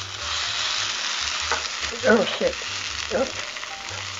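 Vegan ground meat and sliced red onions sizzling in a hot frying pan, with a utensil scraping and tapping against the pan as the meat is broken up.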